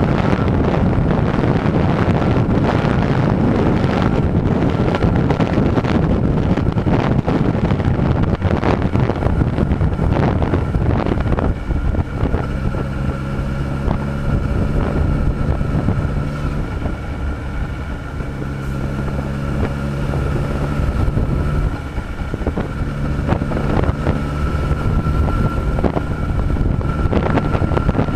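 Honda CB1000R's inline-four engine running at a steady highway cruise under heavy wind rush on the microphone. About halfway through, the engine's steady hum comes through more clearly, dropping out briefly twice.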